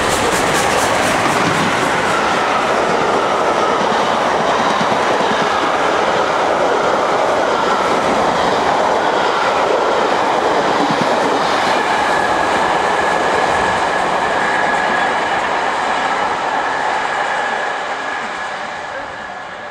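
A train running through the station without stopping: a steady rumble and clickety-clack of wheels over rail joints. A thin, high ringing note joins in for the last several seconds, and the sound fades away near the end as the train recedes.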